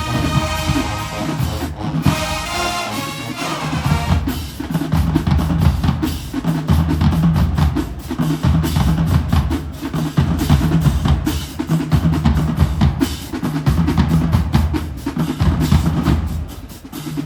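Marching band playing: brass chords for the first few seconds, then the drumline takes over with rapid snare drum strokes and rolls over a repeating bass drum pattern.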